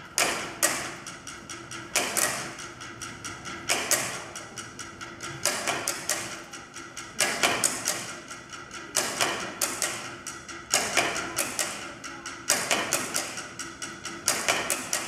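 Rhythmic percussion of sticks beaten on boxes, with a loud accented hit about every second and three-quarters and quicker, lighter taps between.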